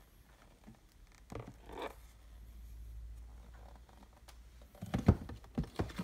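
Gold foil paperboard eyelash box being handled: brief scraping and rubbing, then a few sharp knocks near the end, the loudest about five seconds in.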